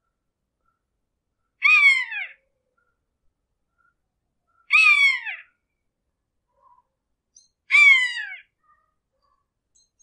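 Hawk screeching three times, about three seconds apart; each call is short and falls in pitch.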